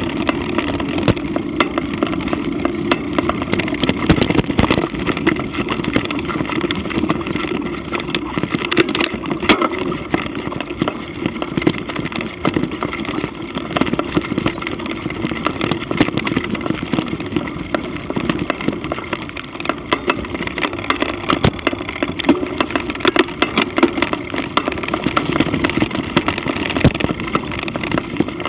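Mountain bike ridden hard over a dirt trail and then a grass path: a steady rumble of tyres and wind with constant small rattling clicks and knocks from the bike.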